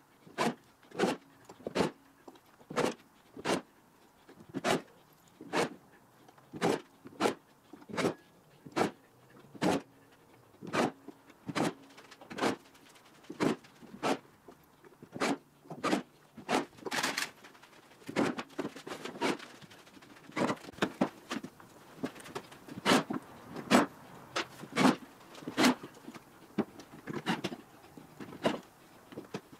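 Cordless drill-driver driving screws through the rails' tie plates into plastic railroad ties, one short burst after another, about one to two a second.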